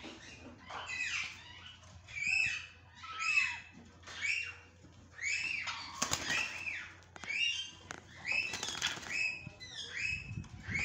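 Indian ringneck parakeets calling in a string of loud, arched squawks, roughly one a second. A bird's wings flap about six seconds in and again near nine seconds.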